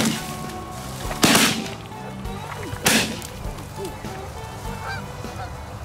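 Two shotgun blasts about a second and a half apart, the first a little over a second in, fired at geese coming in to the decoys.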